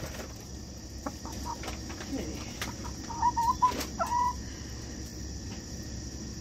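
Backyard hens clucking, with two short wavering calls a little past the middle, among scattered soft clicks.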